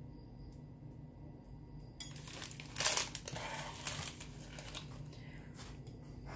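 Crinkling and rustling handling noise with a few light knocks, starting suddenly about two seconds in and loudest soon after. Before it there is only a faint steady room hum.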